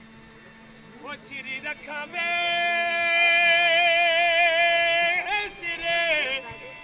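A man singing a Hindko mahiya in full voice. About a second in, he holds one long high note with a slight wavering for about three seconds, then moves into sliding, ornamented phrases. A steady low hum sits under the quiet first second.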